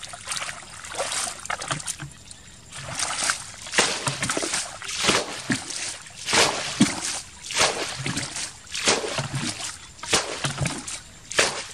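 Repeated splashing in shallow muddy water, about one to two splashes a second, often in pairs, with trickling between them.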